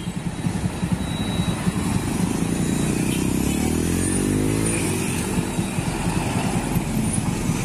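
Mitsubishi trucks' diesel engines running as the trucks pull away at low speed, with motorcycle engines close by. About four seconds in, the engine note bends up and back down.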